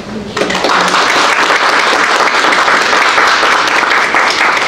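An audience applauding. It starts about half a second in and holds steady.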